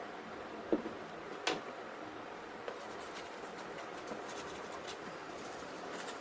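Wooden stick spreading contact cement over a sheet: faint scraping and small clicks, with two light knocks about a second in, over a steady background hiss.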